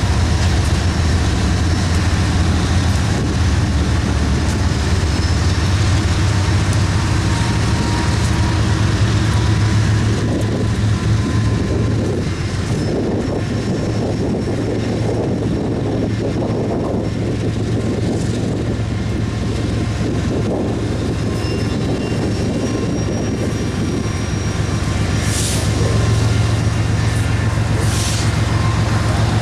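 A BNSF diesel freight train running by: a steady low diesel drone over the rolling noise of the rail cars, with faint high-pitched squeals coming and going. Two short hissing bursts come near the end.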